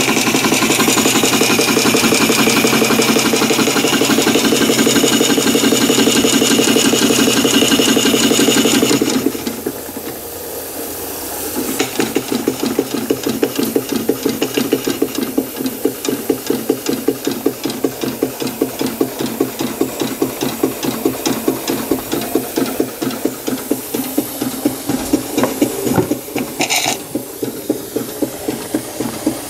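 Märklin ship's steam engine running under live steam and driving a dynamo, with a fast, steady mechanical beat and steam hiss. About nine seconds in it drops quieter for a couple of seconds, then goes on as a rapid, even chuffing beat.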